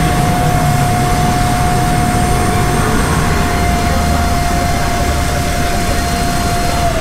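Cotton candy vending machine's spinner head running at speed: a steady high whine over a constant rushing noise. Right at the end the whine starts to drop in pitch as the spinner winds down at the end of the spin.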